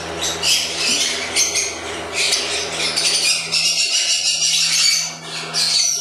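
Many caged lovebirds chattering and screeching together in a dense, continuous high-pitched din, with a steady low hum underneath.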